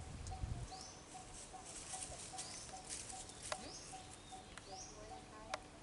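Forest ambience: a short, high call that rises and then levels off repeats about every second and a half over a soft, even pulsing. There are a few low thumps at the start and two sharp clicks later, one about midway and one near the end.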